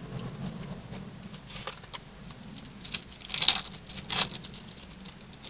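Baseball cards being handled and shuffled by hand: light, irregular rustling and scratching, with two louder crinkles about three and a half and four seconds in.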